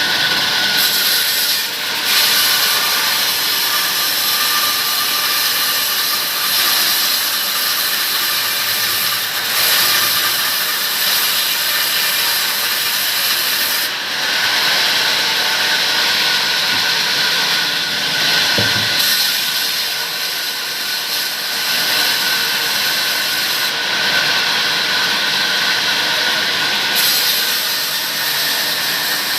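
Power saw cutting steadily through palmyra palm wood: a continuous hiss with a steady high tone running through it.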